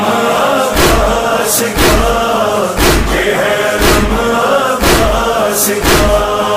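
Urdu Muharram devotional chant about the alam of Abbas, male voices singing in chorus over a deep beat about once a second; this stretch is a sung gap between spoken verses.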